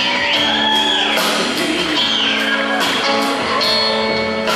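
A live band of electric guitar, upright bass and drums playing a slow song, with long held notes that slide up and down in pitch over a steady bass, and cymbal strikes.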